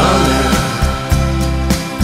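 Background music: an instrumental stretch of a song with a drum beat and sustained chords.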